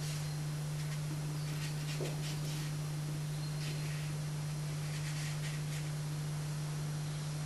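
A steady low hum runs throughout, with a few faint, soft swishes of a paintbrush working wet colour on watercolour paper.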